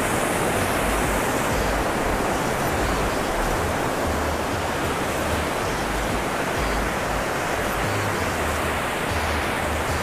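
Waterfall: white water rushing steadily down a granite rock slab and between boulders, a continuous even roar of cascading water.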